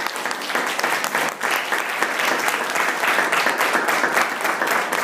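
A small audience applauding: steady clapping of many hands.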